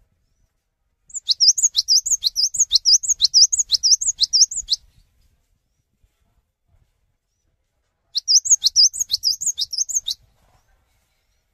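Cinereous tit (gelatik batu) singing: two bouts of fast, repeated high whistled notes, each swooping down and back up, about two to three a second. The first bout lasts nearly four seconds, and after a pause of about three seconds a shorter second bout follows.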